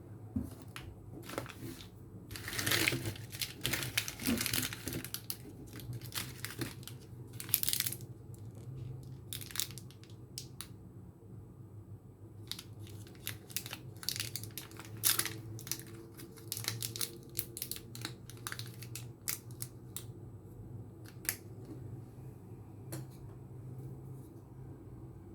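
Meiji Meltykiss chocolate packaging being handled and opened: irregular crinkling, rustling and tearing, loudest a few seconds in, over a steady low hum.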